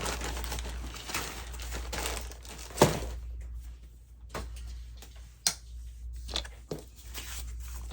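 Paper being handled and cut: rustling and crinkling for the first three seconds, a sharp click about three seconds in, then a few lighter clicks and taps.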